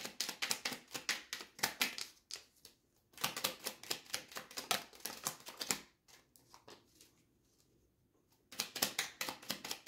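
Oracle cards being shuffled by hand: rapid runs of crisp card clicks. They break off briefly about 2 s in, run again until about 6 s, pause, and start again near the end.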